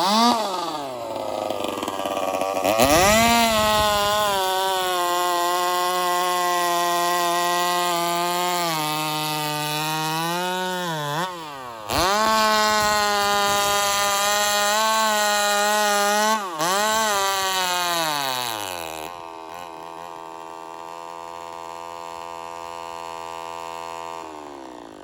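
Joncutter 5800 two-stroke chainsaw running on alcohol fuel. It is revved up about three seconds in and held at high speed, stumbling briefly twice, then drops to a lower, quieter idle for the last few seconds. The owners suspect the stumbling is fuel starvation: the fuel line and filter might not be able to draw alcohol fast enough.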